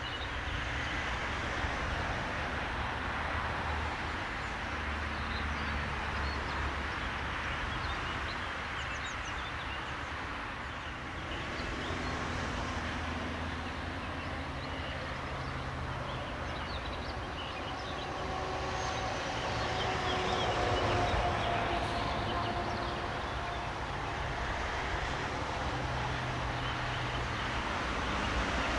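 Class 185 electric locomotive hauling a container freight train on its approach, a steady low rumble that grows a little louder, with a faint whine that comes in about two-thirds of the way through.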